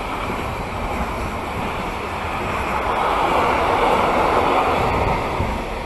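Intermodal freight train carrying road semi-trailers rolling past, a steady rumble and rush of wheels on rail. It swells about halfway through, then fades near the end as the last wagons go by. Wind buffets the microphone throughout.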